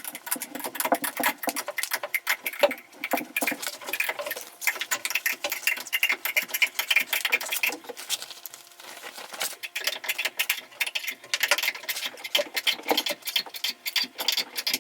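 Fast, uneven mechanical clicking and rattling of a tool driving a large eye bolt into the coop's wooden frame.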